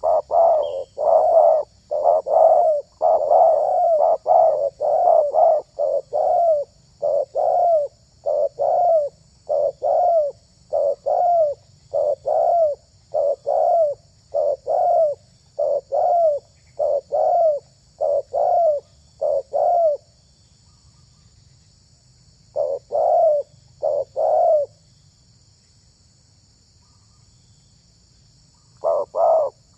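Spotted dove (tekukur) cooing: a long run of short repeated coos, rapid at first and then evenly spaced. They stop, give two more coos, then fall silent for a few seconds before starting again near the end.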